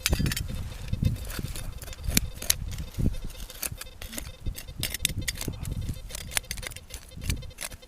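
Rapid, irregular sharp clicks and clinks of rusted metal being handled and dug from the soil: machine-gun ammunition belt links and cartridges. Uneven low rumbling runs underneath.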